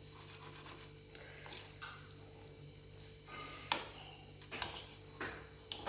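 Metal spoon scraping and clinking against a steel bowl as it mixes soft crumbled roti and curry. A few sharper clinks come in the second half, over a faint steady hum.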